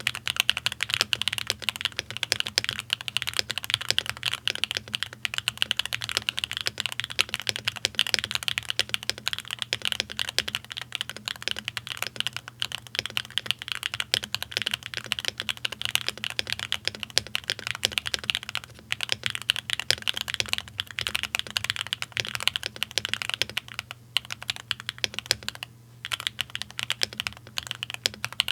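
Fast, continuous typing on a Bakeneko65 mechanical keyboard with SWK Catmint switches on an aluminium plate and GMK Tuzi clone keycaps, the keystrokes clacking in a dense stream, with a brief pause near the end.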